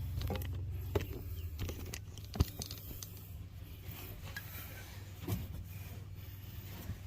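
Light clicks and knocks of plumbing parts and tools being handled, with one sharper knock about two and a half seconds in, over a low hum that fades during the first few seconds.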